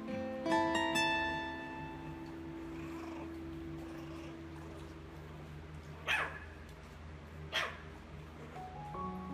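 Two short, sharp dog yips about a second and a half apart, over background music whose notes fade away early and start again near the end.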